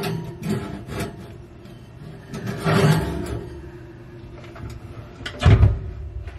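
Cookware and utensils being handled: a few knocks near the start, a scraping rub about halfway through, and a heavy thud near the end.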